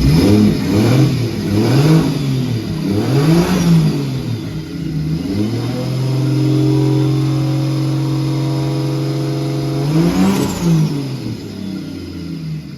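Nissan C33 Laurel's tuned engine revving: several quick rises and falls in pitch, then a steady held note for about four seconds, another rev, and the note falling away near the end.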